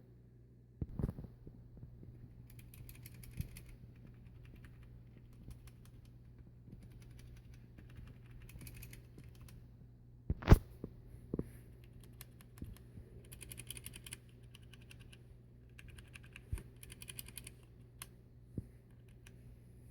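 Mechanical keyboard keys being typed in short, rapid bursts, with a single louder knock about halfway through. The keyboard is a Team Wolf Zhuque with swapped-in hot-swap switches.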